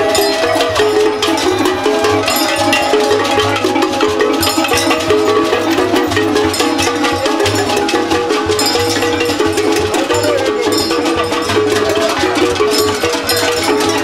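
Loud percussion-led music: a fast, dense beat of wooden clicks and drums under a melody of short notes.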